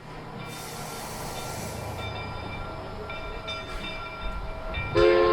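A train running with a steady rumble. Near the end a multi-note train whistle starts to blow as a loud chord.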